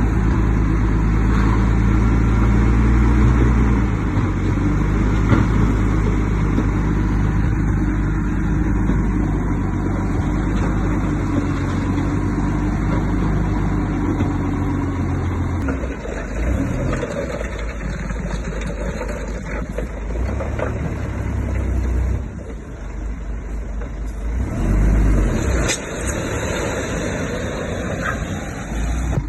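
Bulldozer's diesel engine running steadily under load. About sixteen seconds in, the engine note changes and becomes uneven, with a few short knocks.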